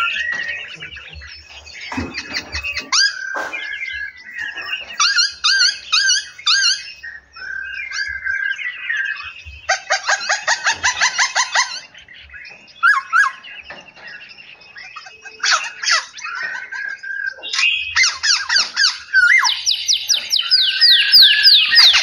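Several caged songbirds in an aviary calling and singing over one another: whistled phrases, chirps and fast rattling trills, busier and louder over the last few seconds.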